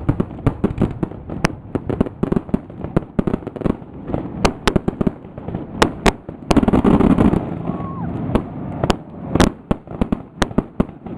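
Fireworks display: quick runs of sharp pops and bangs going off one after another. A louder, denser burst comes about six and a half seconds in, followed by single sharp bangs.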